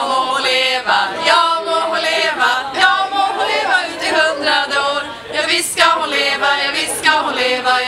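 Three young women singing a birthday song together, unaccompanied.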